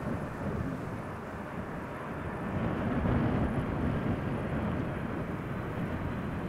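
Jet airliner engines rumbling steadily, mixed with crosswind gusting on the microphone. The rumble swells a little about halfway through.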